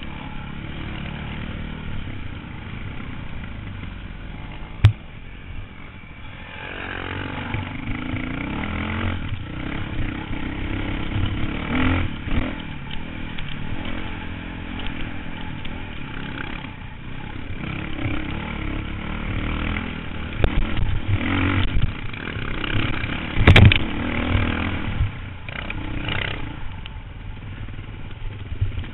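Dirt bike engine running and revving up and down through the gears while riding a rough trail, with a few sharp knocks from the bike over the ground, the loudest about two-thirds of the way through.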